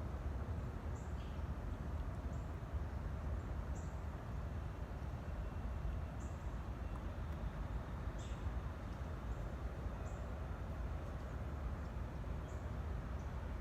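Outdoor ambience: small birds chirping, short high chirps every second or two, over a steady low rumble.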